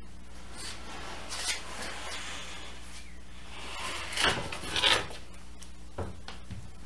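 Wood-framed trailer floor panel being slid onto a steel trailer frame: wood scraping and rubbing over the metal rails, with two louder scrapes about four and five seconds in. A steady low hum runs underneath.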